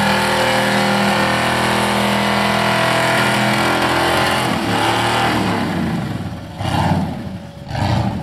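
A V8 engine in a Toyota Corolla is held at high revs through a smoky burnout with the rear tyres spinning. About six seconds in the revs fall away, and two short blips of the throttle follow near the end.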